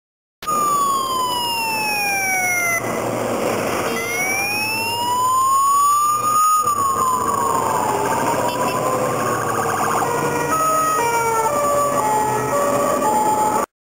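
Police vehicle sirens passing: several wailing sirens sliding down, then up and down in pitch, and from about ten seconds in, two-tone sirens stepping back and forth between high and low notes, overlapping one another. The sound cuts in just after the start and cuts off just before the end.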